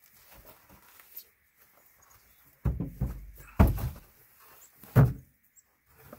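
Homemade wooden bed frame of 2x4s and plywood being turned over and set down on its legs, with three heavy thuds and knocks about a second apart around the middle.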